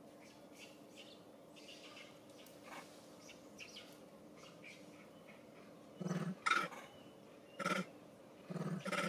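Faint bird chirping, then from about six seconds in a run of about four short, loud animal calls, the last two close together near the end.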